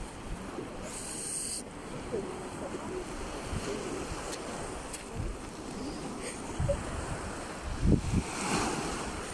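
Small sea waves lapping and breaking on a sandy shore, with wind buffeting the microphone in low gusts, strongest about eight seconds in.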